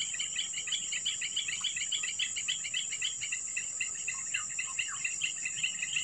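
Insects calling: a steady high buzz with a fast, even chirping at about six chirps a second. A few short falling whistles come in about four seconds in.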